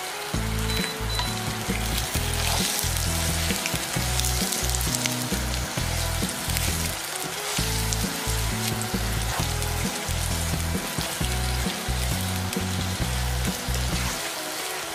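Chestnuts sizzling in hot oil and melted, browned sugar in a frying pan while a wooden spatula stirs them, with background music underneath.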